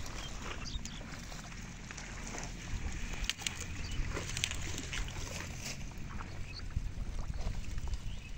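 Water hyacinth leaves and stems rustling and crackling, with water sloshing, as a man pulls at the plants by hand in a shallow pond. A low wind rumble on the microphone runs underneath.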